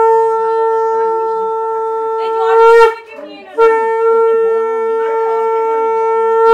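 Conch shell (shankha) blown in two long, steady blasts, with a short break about three seconds in. Each blast swells louder near its end.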